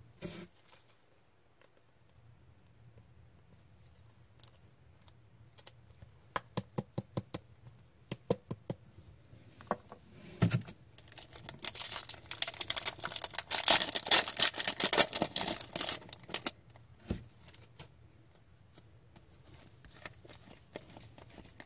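Trading cards and their packaging being handled: a run of light clicks, then a few seconds of dense crinkling and crackling in the middle, typical of a foil card pack being opened.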